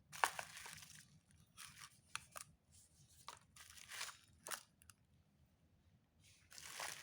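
Faint handling noises of a glass lunch box with a plastic lid: scattered light clicks, taps and rustles at irregular moments, with a longer rustle near the end.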